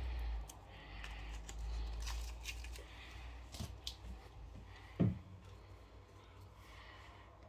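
Faint clicks, taps and light rustling of handling at a plastic mixing bowl of flour and yeast water, with one louder knock about five seconds in. A low rumble cuts off within the first half second.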